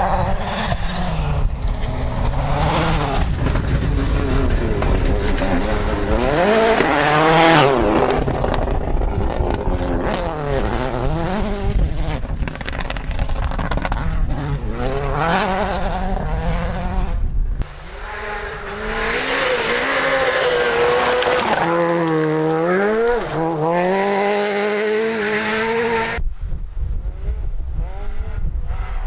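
Rally cars at full throttle on a gravel stage, several in turn: engines revving hard and dropping back through gear changes over the rush of tyres on loose gravel.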